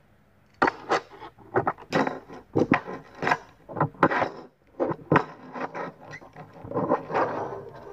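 Hard plastic McDonald's We Bare Bears Happy Meal toy figures clacking and knocking on a tabletop as they are handled and set down: many irregular sharp taps, with a longer scrape near the end.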